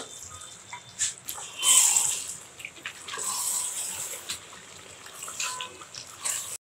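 Chicken masala sizzling and bubbling in an aluminium pressure cooker as it is stirred with a spatula, with short scrapes and knocks of the spatula against the pot.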